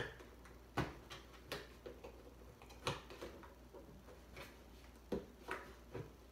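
Scattered sharp clicks of plastic as a nail is pushed by thumb through a plastic jug lid, about seven at uneven intervals.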